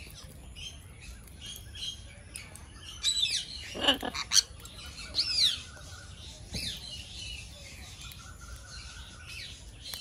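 Aviary birds chirping and calling: scattered short calls, some sliding in pitch, busiest between about three and five and a half seconds in.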